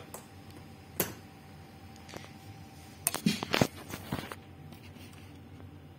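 Handling clicks and knocks on a dead active speaker: a single sharp click about a second in, then a cluster of clicks and knocks a little past the middle as its plug and buttons are tried. The speaker itself gives no sound, as it is not working.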